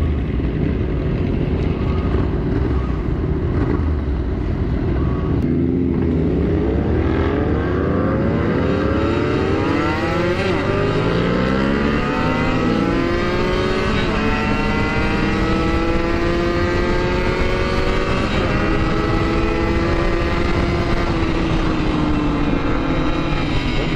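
Kawasaki Ninja 150RR two-stroke single engine pulling away from a stop and revving up through the gears, its pitch climbing and dropping at each shift from about five seconds in, then holding a steady cruise note over the last third. Wind noise runs under it.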